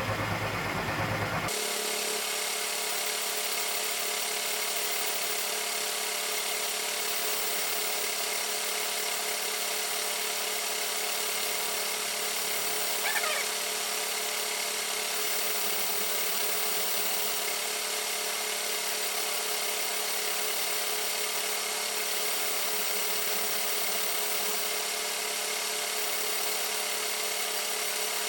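Milling machine running at its slowest spindle speed, a steady machine hum and whine, while a 1/8-inch drill bit is hand-fed into hardened steel. A brief squeal about 13 seconds in. The bit is failing to cut through the hardened steel.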